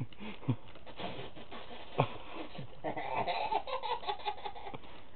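A person laughing: a few short, separate vocal sounds at first, then a quick run of repeated laughing bursts past the middle.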